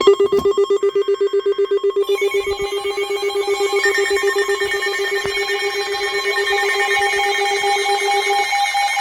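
Electronic emergency alert tone: a rapidly pulsing electronic tone with several steady pitches layered together. More tones join about two seconds in, and the low pulsing tone stops near the end.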